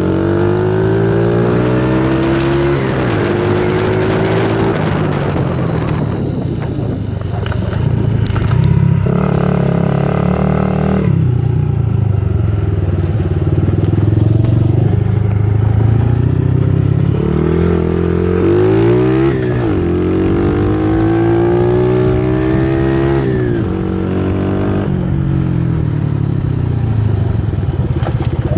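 A 90 cc dirt bike engine with a new exhaust, revving up and down repeatedly; its pitch rises and falls several times, with a high steady stretch about a third of the way in.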